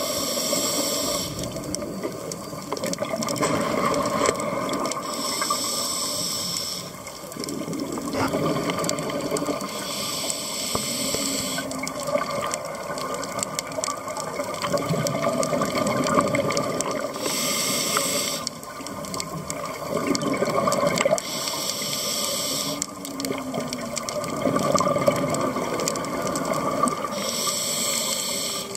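Scuba diver breathing through a regulator underwater: six hissing inhalations, about one every five seconds, with the gurgle of exhaled bubbles between them.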